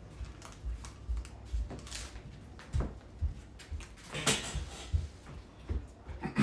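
Scattered knocks and low thumps of household handling, with a louder knock about four seconds in.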